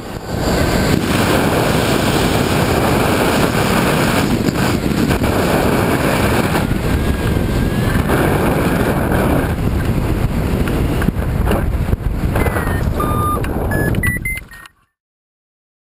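Loud, steady wind rush over the camera microphone of a gliding hang glider, through the final approach and landing. A few short electronic beeps sound near the end, and then the sound cuts off suddenly.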